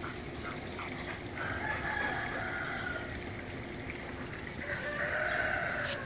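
A rooster crowing faintly twice, each crow lasting about a second and a half.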